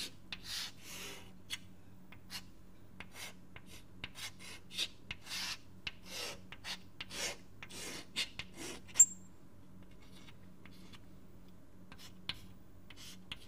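Scratchy writing strokes as a circuit diagram is drawn by hand: quick, irregular strokes for about nine seconds, then a sharp tick and a few scattered strokes. A faint steady electrical hum runs underneath.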